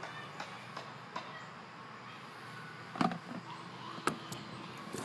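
Fuel being poured through a plastic funnel into a snowmobile, then the funnel and jug being handled: a faint steady hiss with a few light ticks, sharp knocks about three and four seconds in, and a clatter of knocks near the end.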